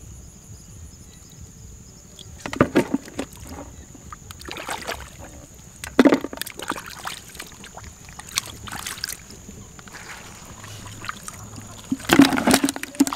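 Hands splashing and squelching in shallow muddy water, in a few separate short bursts. Near the end comes the loudest splashing, as a catfish is dropped into a plastic bucket of water and fish.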